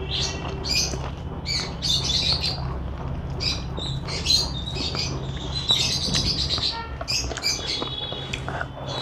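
Small birds chirping and squawking repeatedly, several short sharp calls a second, over a steady low hum.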